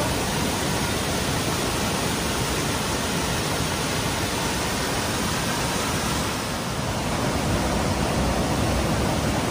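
Steady rushing roar of a waterfall, an even wash of water noise with no breaks.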